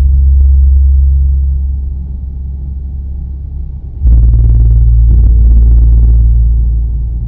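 Music made of deep, sustained bass tones. One held low note fades away, then a new, lower note comes in about four seconds in and slowly dies away.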